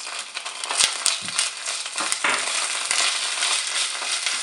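Ginger-garlic paste and fried onions sizzling in hot oil in a non-stick pan while a wooden spoon stirs and scrapes through them, with a few sharp clicks of the spoon against the pan.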